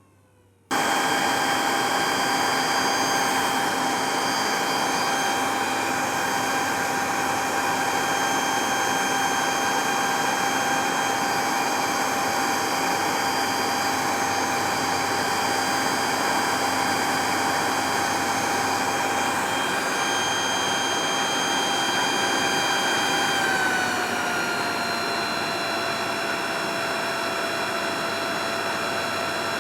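Leaf blower running at steady high speed, a loud rush of air with a high whine, starting abruptly under a second in. About 24 seconds in its speed drops a little: the whine slides slightly lower and it gets a bit quieter, then holds steady.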